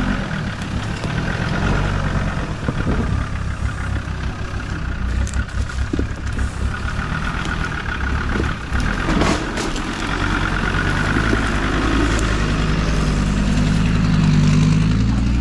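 4x4 off-road vehicle engine running at low revs as it crawls through a tight wooded lane, with a brief clatter about nine seconds in and a few lighter knocks before it.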